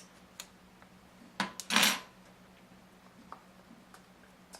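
Clicks and a short clatter of small hard parts being handled, loudest just under two seconds in, as the little hose is worked off a Tippmann X7 Phenom paintball marker's flex valve.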